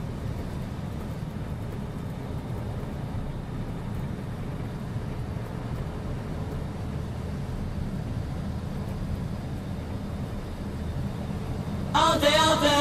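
Steady low rumble of a vehicle driving on the road. Near the end, music with singing cuts in suddenly.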